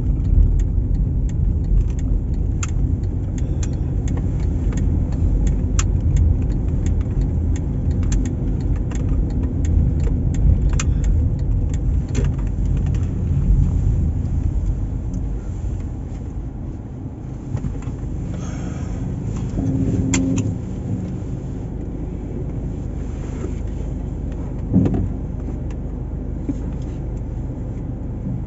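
Car driving: steady low road and engine rumble with scattered small clicks and rattles. The rumble drops off a little past the middle.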